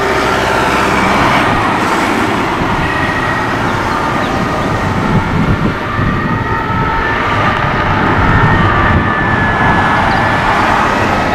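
Cars driving past on a road, with a steady rush of tyre and engine noise. A distant emergency-vehicle siren fades out in the first second and is faintly heard again later.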